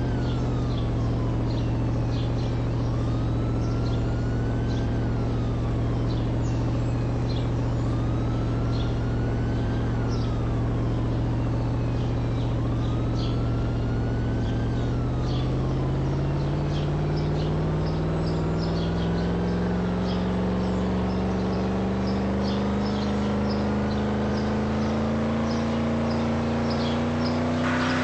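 A car engine running steadily, then its pitch rising gradually over the second half as it speeds up. A high call and chirps repeat every few seconds over it.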